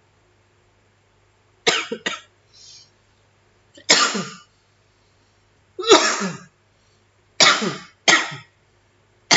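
A man coughing in a fit of about seven coughs, some in quick pairs, starting about two seconds in.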